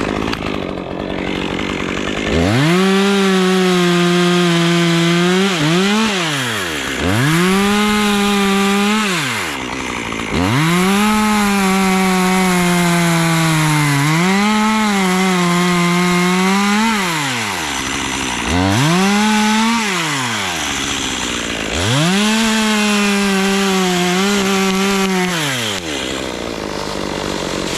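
Two-stroke chainsaw revved up and held at full throttle five times, dropping back to idle in between, its pitch sagging a little while it cuts oak wood.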